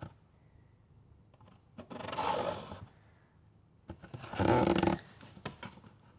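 Swivel chair making two drawn-out groaning noises, each about a second long, as it is turned.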